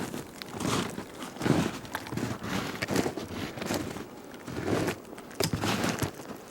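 Footsteps crunching through brush and dry ground, about one or two steps a second.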